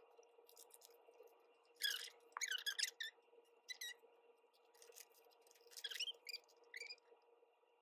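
Plastic photocard sleeves squeaking and rustling as cards are handled and slid into binder pockets: a series of brief scrapes and squeaks, a few to a second apart, over a faint steady hum.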